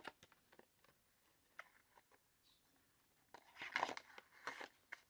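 Slim cardboard product box and eyeliner pencils being handled: a few light clicks and taps, then, about three and a half seconds in, a short spell of louder scraping and crinkling as a pencil is slid into the box.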